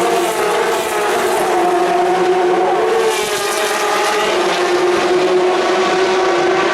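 Several racing car engines running hard as cars pass on the circuit, their notes overlapping. One car's note drops in pitch about three seconds in.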